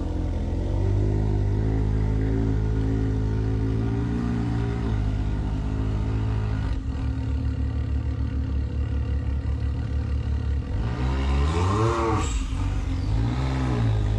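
Can-Am Maverick X3's turbocharged three-cylinder engine idling through an RPM E-valve cat-delete exhaust. The idle note turns lumpier about seven seconds in, then the engine is revved up and back down once near the end, with a smaller blip after it.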